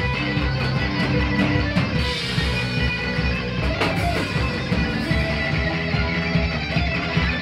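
Metal band playing live and loud: bass guitar and distorted electric guitar over driving drums with steady cymbal hits.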